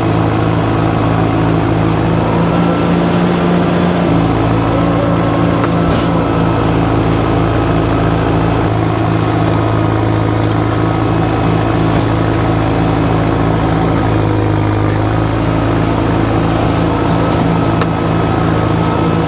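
Old crawler bulldozer's engine running steadily under the operator's control as the machine moves, its note shifting a few seconds in and again around nine seconds in.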